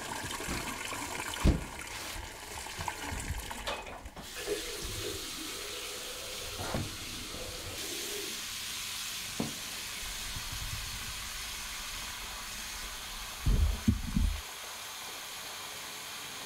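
Water running steadily from a bathroom tap into a sink. Now and then something knocks or thumps, with a cluster of louder thumps near the end.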